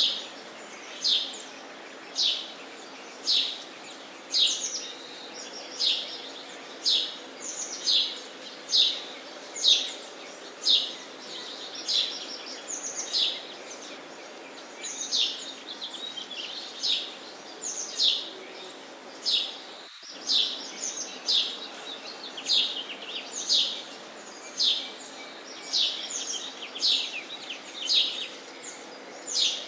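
Sparrows chirping: short, sharply falling chirps repeated roughly once a second in an uneven run, over a steady low background hiss.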